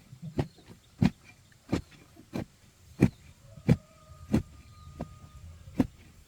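Repeated chopping strikes of a hand tool into a tree stump, about one every two-thirds of a second, with a faint steady whine for a couple of seconds in the middle.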